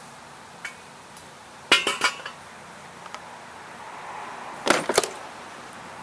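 Metal clanking and knocks in two short bursts, about two seconds in and again about five seconds in, as a metal stand is pulled out and a push mower is set back down on its wheels.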